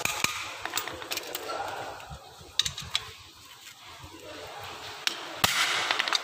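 Hammer striking a hand impact screwdriver set in a screw of a car alternator's housing: a few sharp metallic taps in the first second and a half, two more about two and a half seconds in, and the hardest blow about five and a half seconds in, followed by a brief rattle of metal parts.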